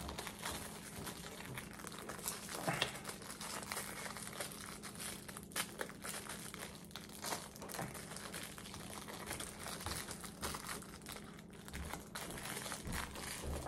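A person chewing a mouthful of crispy fried chicken sandwich close to the microphone: a continuous run of small crackles and clicks.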